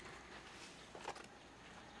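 Near-silent room tone with a faint brief sound at the very start and a short cluster of faint ticks about halfway through.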